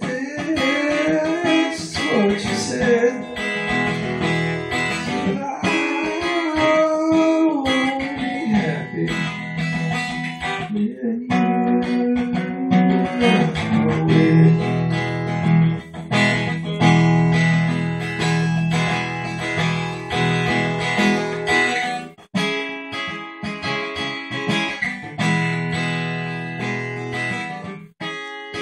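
Acoustic guitar played solo, strummed chords mixed with picked notes: an instrumental break in a slow folk song.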